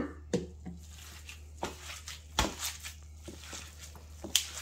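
Gloved hand mixing sauced pulled pork in a disposable aluminium foil tray: scattered soft squishes of the meat and crinkles of the foil, irregular and uneven in loudness, over a low steady hum.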